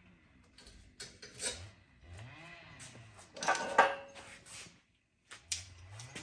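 Metal tools and steel pieces being handled: scraping, clinking and a few sharp knocks, loudest about three and a half seconds in. A cow starts mooing near the end.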